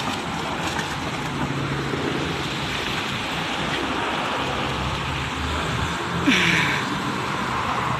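Steady outdoor street noise of road traffic, with a brief hiss about six seconds in.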